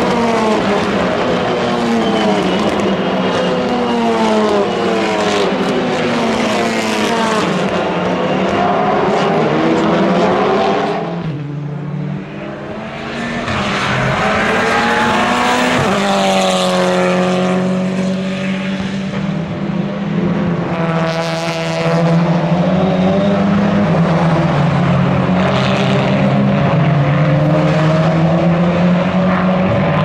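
Lynk & Co 03 TCR touring cars' turbocharged four-cylinder engines racing past, the pitch climbing and dropping again and again as they shift up and down through the gears. The sound eases briefly about eleven seconds in, then rises again as more cars come through.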